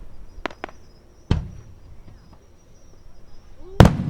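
Fireworks shells bursting: two sharp cracks near the start, a deep boom just over a second in, and the loudest boom near the end. Insects chirp steadily in between.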